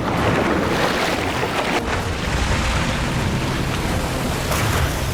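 Loud rushing, sloshing water with a low rumble, setting in suddenly and holding steady.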